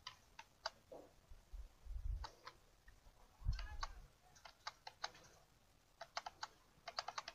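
Faint computer keyboard key clicks: scattered single presses and small groups of presses, then a quicker run of keystrokes near the end. The keys are being pressed to switch between open windows.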